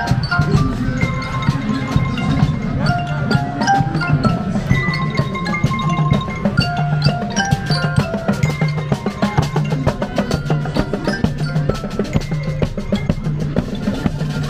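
Marching percussion band playing a tune: harness-mounted mallet instruments (marching glockenspiels and xylophones) ring out a stepping melody over a steady beat of drum strokes, bass drums among them.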